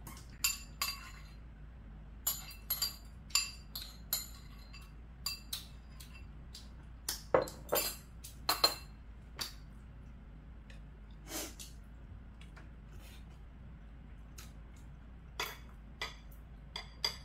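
Metal chopsticks and a metal spoon clinking and scraping against ceramic bowls while eating: scattered sharp clinks at irregular intervals, some ringing briefly.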